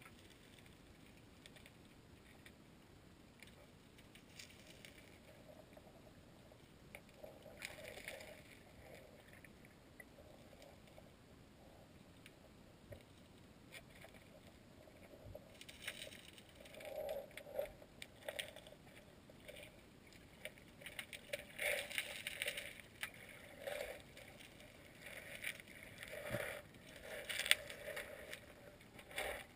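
Creek water gurgling and swishing, heard muffled through an underwater camera's housing, in faint irregular bursts that grow busier about halfway through.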